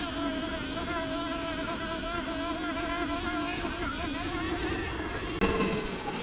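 Surron Ultra Bee electric dirt bike motor whining while riding, its pitch wavering up and down with the throttle, over a low rumble. A single sharp knock about five seconds in.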